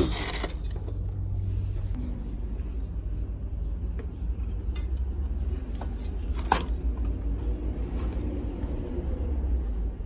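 Small plastic clicks every second or two as plastic star beads are pushed onto the spokes of a child's bicycle wheel, the sharpest about six and a half seconds in, over a steady low rumble.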